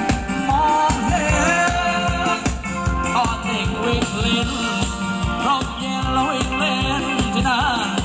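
Live Thai ramwong dance band playing amplified music, with a steady fast drum beat and a melody line over it.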